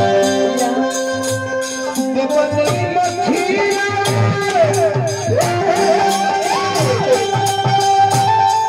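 Live Indian stage music played over a PA: held melody notes over a steady drum beat, with a jingling rattle keeping time. Gliding, sliding notes come in about three seconds in.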